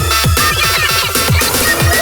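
Loud electronic dance music: a bass-heavy Indonesian dugem DJ remix with fast, booming kick drums whose pitch drops on each hit, under synth lines.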